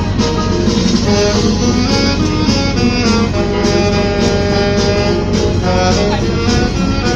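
Saxophone playing a jazzy melody over a chordal accompaniment, with a steady low rumble of train wheels underneath.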